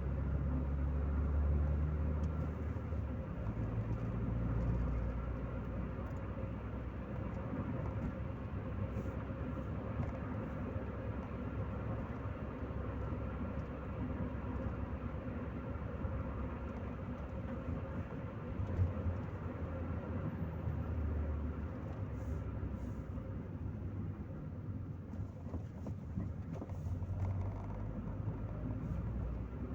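Chevrolet Corsa Maxx heard from inside the cabin while driving: the engine runs under steady road and tyre noise, its low note shifting a couple of times with the driving.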